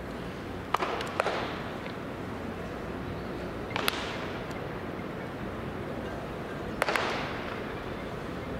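Sharp cracks of a baseball striking a bat or catcher's mitt during live batting practice, each echoing off the stadium: a quick cluster about a second in, another near four seconds and another near seven, over a steady background hum of the ballpark.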